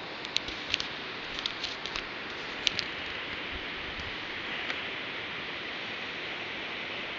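Steady outdoor rushing hiss, with a scatter of short sharp ticks in the first three seconds.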